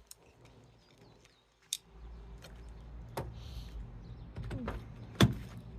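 Car door being handled: a few sharp clicks and knocks, the loudest near the end, over a steady low hum that starts about two seconds in.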